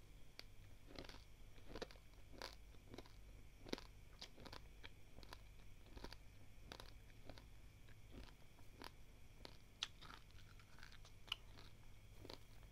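Close-up crunching and chewing of a mouthful of dry, uncooked roasted India Gate basmati rice grains. The crunches are faint and irregular, about two a second, with a few sharper cracks.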